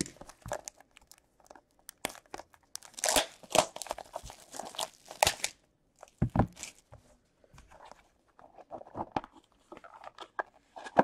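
Plastic shrink wrap torn and crumpled off a hockey card box, crinkling densely from about three to five seconds in. A low thump follows about a second later, then lighter rustling and scraping as the cardboard box is slid open.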